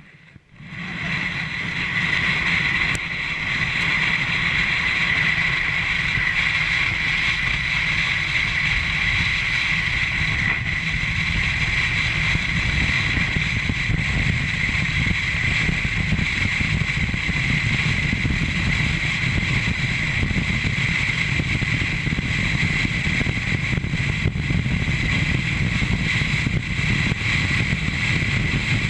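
Sled sliding over a snow-covered road, a steady scraping hiss and rumble that starts about a second in and then runs on without a break.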